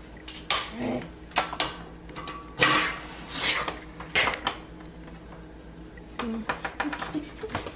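Handling noise of an electric griddle's power cord being plugged into a wall outlet: a run of sharp clicks and knocks mixed with short rustles.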